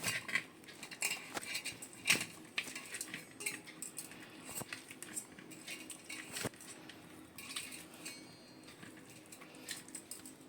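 Boiled potatoes being mashed by hand in a large metal pot: soft squishing with irregular small clicks and knocks against the pot, the sharpest about two seconds in and again near six and a half seconds.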